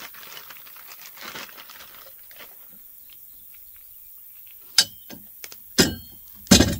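Office-chair assembly bolts and their plastic packaging being handled: faint rustling, then three sharp clacks about a second apart near the end, the last the loudest.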